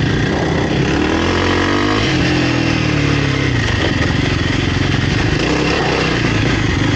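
Kawasaki KLX300R's single-cylinder four-stroke engine running under way, its pitch rising and falling with the throttle, with a drop in revs about two seconds in.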